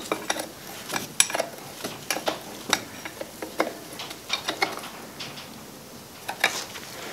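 Irregular light metal clicks and taps from hands working on a transfer case with its transmission adapter housing fitted, scattered unevenly rather than in a steady rhythm.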